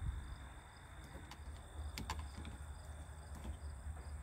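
A few faint clicks and taps of a screwdriver and small parts at a Jeep CJ7's steering column, over a low rumble and a steady high drone of insects.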